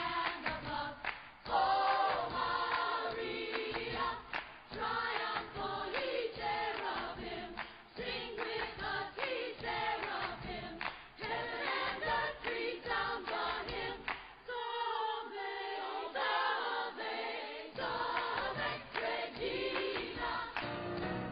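Choir-like singing, with sung notes that shift in pitch without a break.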